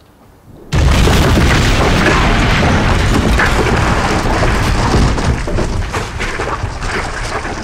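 A sudden heavy boom as a bomb-damaged building's wall comes down, then a long rumble of falling masonry with debris crashing, slowly dying away.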